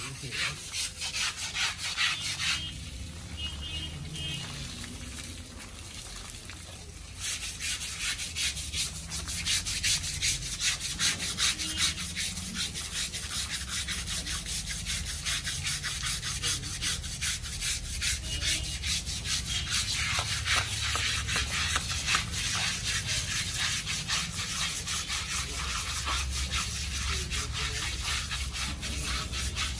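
Elephant's hide being scrubbed by hand: rapid, rough rubbing strokes that go on steadily from about seven seconds in.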